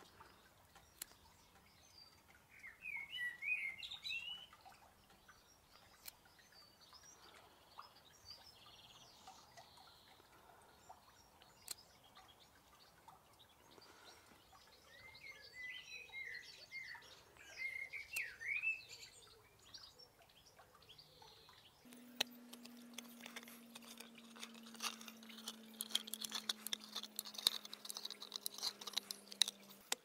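Small birds singing in two short bursts. From about 22 s comes a rapid run of clicks and scrapes: the tin-opener blade of a clasp knife levering its way around a steel can lid, over a steady low hum.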